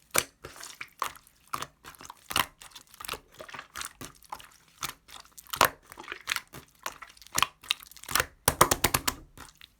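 Melted clear teal slime being squished and pressed by hand, giving irregular wet clicks and pops, with a quick run of them near the end.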